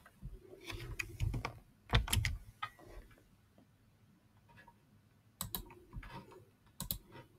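Computer keyboard and mouse clicks in two short, irregular clusters: one in the first three seconds and another from about five and a half seconds in.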